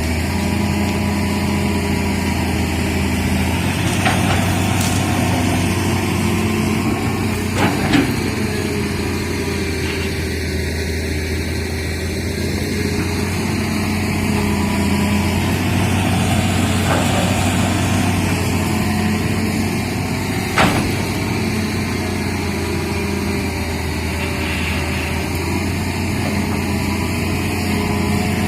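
Diesel engine of a hydraulic excavator running steadily, with a few sharp knocks about four, eight and twenty seconds in.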